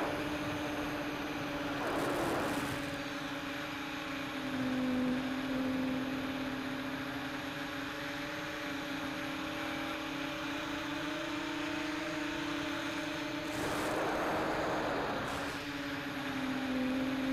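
Tricopter's electric motors and propellers whining steadily in flight, the pitch dipping briefly a few times as the throttle changes, with short swells of rushing air noise about two seconds in and again near the end.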